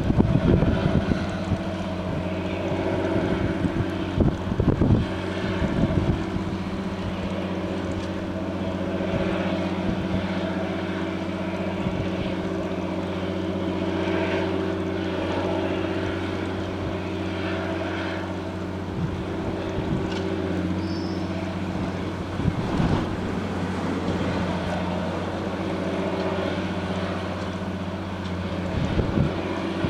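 Diesel engine of a multiple tie tamper track-maintenance machine running steadily at a constant pitch. Wind gusts hit the microphone a few times.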